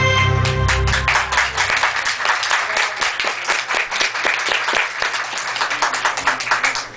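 Belly-dance music ends about a second in, and an audience applauds with many hands clapping.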